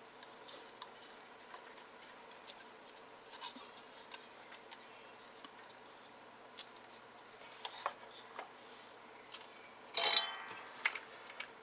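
Faint clicks and rubbing as hands fit component leads into a small circuit board and turn it over, then a short clatter about ten seconds in as the board is set down on a wooden bench.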